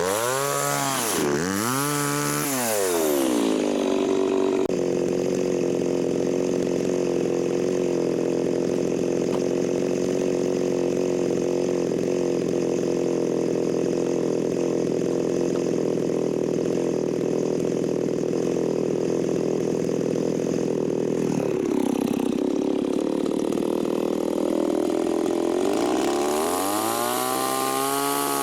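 Chainsaw engine revved up and down twice, then held at a steady high speed for a long stretch. It drops back briefly about three-quarters of the way through, then climbs to speed again.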